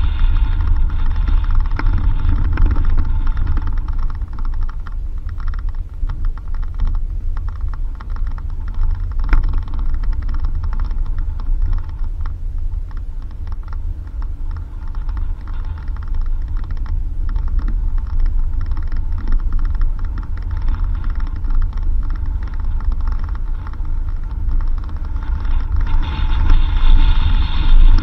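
Suzuki Jimny driving over a rough dirt road: a steady low engine and road rumble with many small rattles, knocks and creaks from the body and suspension, growing louder near the end.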